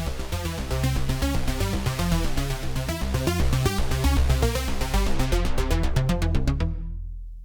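Arturia MiniFreak synthesizer playing a fast, even sequenced arpeggio over a heavy bass. The arpeggio stops near the end and the bass tail fades away.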